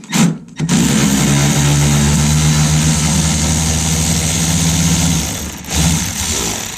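A handheld power drill runs, drilling out a plastic rivet: a short trigger pull, then a steady run at constant speed for about four and a half seconds, winding down, and one more brief burst near the end.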